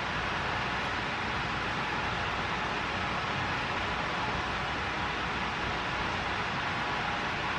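Steady, even hiss of room noise with no distinct events.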